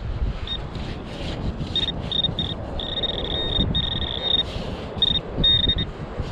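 Metal detector sounding a high, steady target tone in a run of short and longer beeps as it is swept over a target in the dug sand. Wind rumbles on the microphone.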